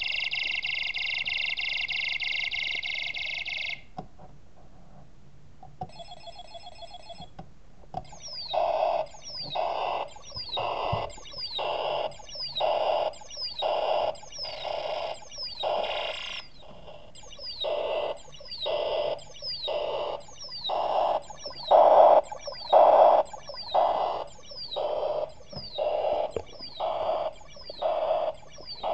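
Electronic sound effects from the loudspeaker of a snap-together electronics kit, driven by a sound chip. A steady, phone-like ring stops after about four seconds. Then, after a short warble, a repeating pattern of a high falling chirp and a beep comes about one and a half times a second.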